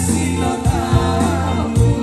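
Live band music through a stage PA: a steady beat with drum strikes and bass under chords, and amplified singing into handheld microphones.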